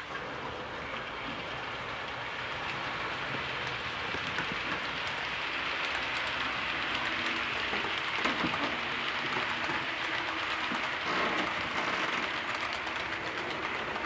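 HO-scale model trains running on the layout track: a steady hiss of small metal wheels rolling over the rails, growing louder as a train passes close by.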